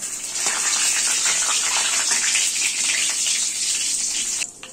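Whole spices (cumin seeds, bay leaf, dried red chillies, cardamom and cinnamon) sizzling and crackling in hot mustard oil in a kadai as a spatula stirs them: the tempering of the spices. A dense crackling hiss that stops abruptly near the end.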